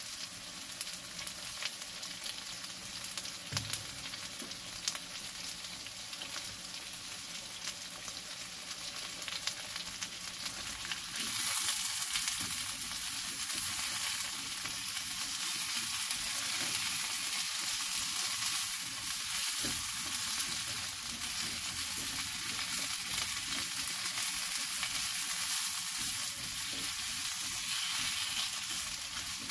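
Diced potatoes and sliced red onion sizzling as they fry in a wok, with a spatula stirring them and ticking against the pan. The sizzle grows louder about eleven seconds in.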